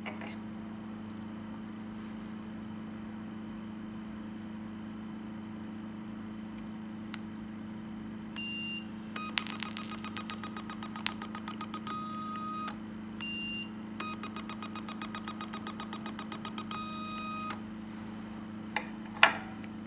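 HIFU handpiece firing two treatment lines: each starts with a short beep, then a rapid train of clicking beeps for about three seconds as the cartridge delivers its row of shots. A steady low hum runs underneath.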